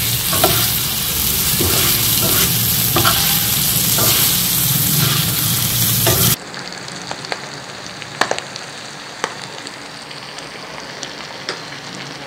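Chicken liver pieces sizzling on a hot iron tawa while a flat steel spatula scrapes and taps the pan. About six seconds in, the loud sizzle drops suddenly to a quieter one, with occasional sharp taps of the spatula.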